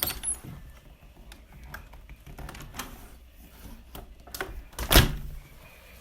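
Irregular clicks and knocks, with one louder knock about five seconds in.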